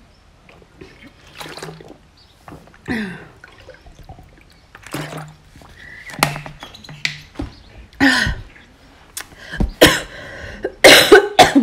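A person drinking from a plastic water bottle, then a string of short throat sounds and coughs and throat clearing, loudest and closest together near the end.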